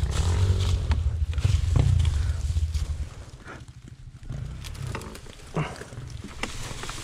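Enduro dirt bike engine running with a low rumble, which falls away sharply about three seconds in to a quieter low running sound with a few clicks.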